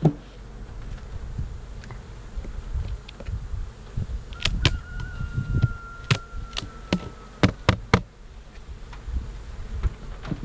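Honey bees buzzing steadily around an opened hive, with a cluster of sharp clicks and knocks about halfway through as the hive's inner cover board is pried loose and lifted off.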